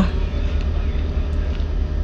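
Steady low rumble of a ship's engine machinery, with no clear change over the two seconds.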